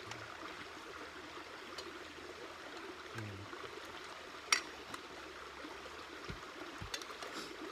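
Spoons clinking against stainless steel bowls during a meal, a few sharp clinks with the loudest about halfway through, over a steady hiss in the background.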